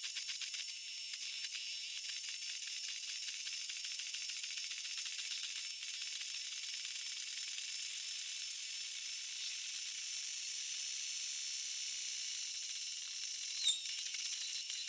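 QIDI X-Max 3 3D printer running a print, its sound sped up with the footage into a steady high hiss with thin whining tones. A single sharp click comes near the end.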